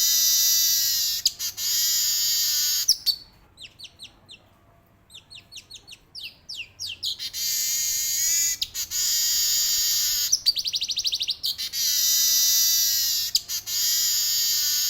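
Male weaver bird (manyar) singing: long, buzzing, rattling rolls of a second or two each, repeated several times. Near the middle the song breaks into a quieter run of short, sharp, falling notes.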